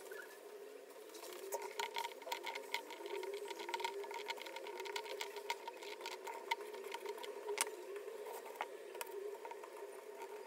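A small motorised tool running, its hum wavering in pitch, with a dense rattle of rapid clicks starting about a second and a half in.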